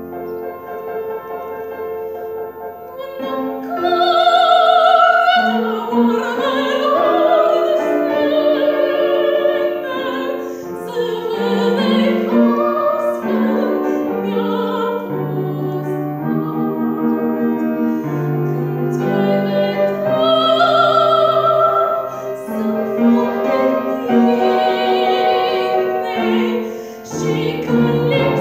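A girl singing a classical art song in an operatic style with vibrato, accompanied by piano. The piano plays alone for the first few seconds before the voice comes in.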